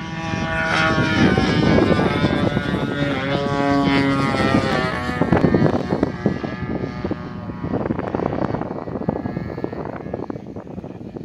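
Radio-controlled Hangar 9 Spitfire model's engine and propeller on a fly-past. The engine note shifts in pitch as the plane passes, is loudest in the first half and grows fainter near the end.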